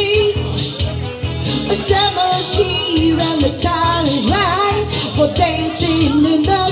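Live pop music: a woman singing into a microphone over electronic keyboard accompaniment with a steady beat.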